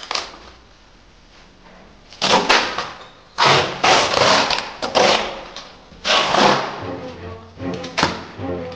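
A scuffle: a series of loud thumps and rustling, struggling noises in several clusters. Music comes in underneath near the end.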